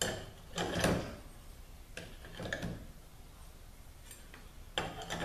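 Metal transmission parts being handled on a metal workbench during clutch-pack assembly: a few separate knocks and light clinks, with a cluster of them near the end.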